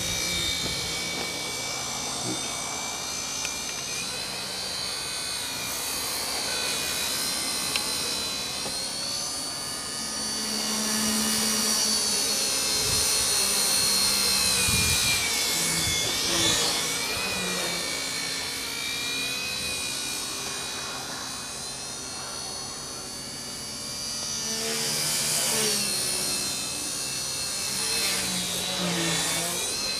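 Wltoys V931 radio-controlled helicopter flying, its battery-powered motor and three-blade main rotor giving a high whine that rises and falls in pitch as it manoeuvres. The sound is loudest a little before the middle and again in the last few seconds.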